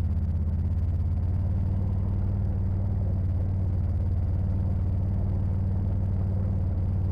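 Side-by-side UTV engine heard from inside the cab, running steadily at low speed as a low drone.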